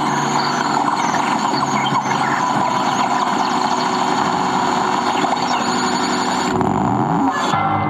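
Dense, grinding electronic noise from a live electroacoustic performance played over loudspeakers. About six and a half seconds in the top end drops away and a pitch glides upward, and near the end it gives way to held ringing tones.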